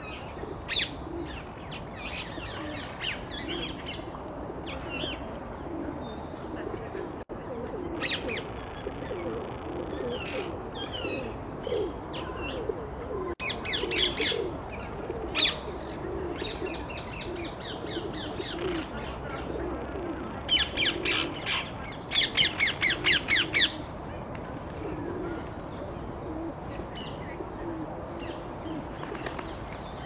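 Rose-ringed parakeets screeching in harsh, repeated calls, with a fast run of shrieks about two-thirds of the way through. Underneath, feral pigeons coo steadily.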